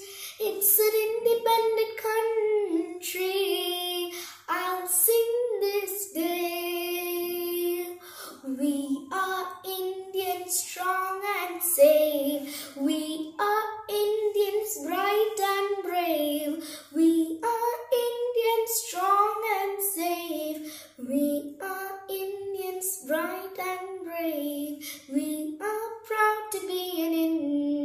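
A girl singing a song solo, with no accompaniment.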